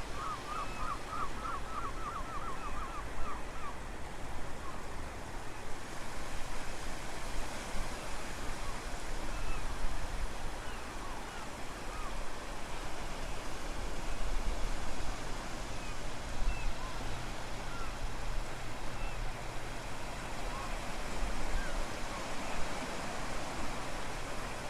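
Steady rush of wind and surf at the shore, with a low wind rumble on the microphone. Birds call now and then over it, beginning with a quick run of about ten chirps in the first two seconds.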